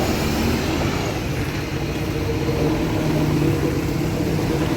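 Concrete mixer truck's diesel engine running steadily as the truck is manoeuvred slowly.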